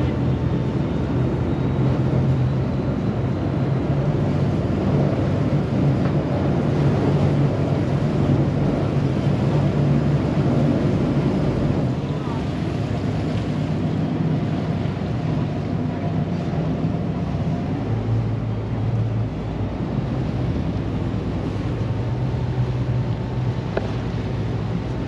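A small passenger boat's engine running steadily under way, its propeller churning the water, with a low, even hum. The engine eases about halfway through and its note shifts again a few seconds later.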